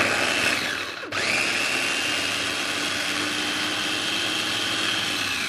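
Small electric food chopper running, its blade chopping peeled shallots and candlenuts in coconut oil into a paste. It drops off briefly about a second in, then spins back up and runs steadily with a whine until it cuts off.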